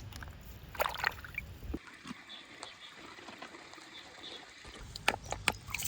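Water trickling, with a few sharp clicks and taps about a second in and again near the end.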